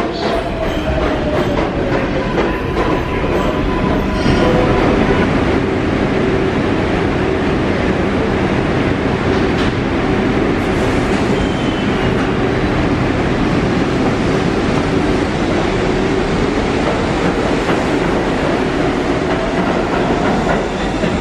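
New York City Subway R62A train rolling along the station platform: a loud, steady rumble with wheel clatter and faint gliding tones.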